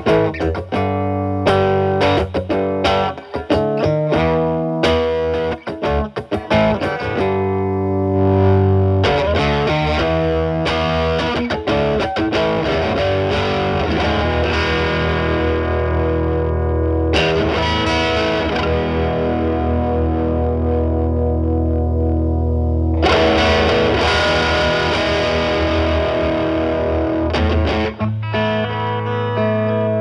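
Telecaster with alnico single-coil pickups played through a Moollon compressor pedal set as a gain boost into a Marshall Valvestate amp's drive channel, with the guitar's volume rolled back to clean up the overdrive. Short, choppy chords for the first several seconds, then chords left to ring and sustain, with fresh strums near the middle and again near the end.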